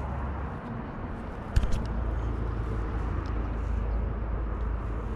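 Steady low outdoor rumble, with a sharp knock and a few quick clicks about a second and a half in.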